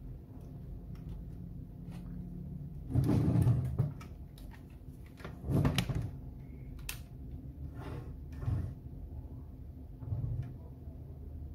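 Handling noise from the opened sheet-metal case of a Kunkin KP184 DC electronic load being shifted and tilted by hand, with two louder scraping bursts about three and six seconds in and a few lighter knocks and clicks after.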